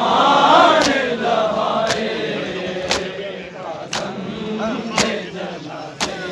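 Men's voices chanting a Punjabi noha lament together, loudest in the first second and a half. Sharp chest-beating slaps (matam) keep time at about one a second throughout.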